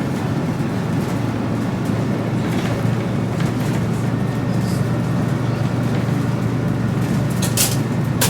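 City bus running with a steady low engine drone. A few short clicks and rattles come through, the loudest near the end.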